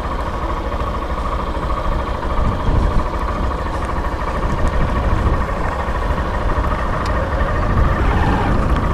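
Honda XRE 190's single-cylinder four-stroke engine running steadily at low speed as the motorcycle rolls along.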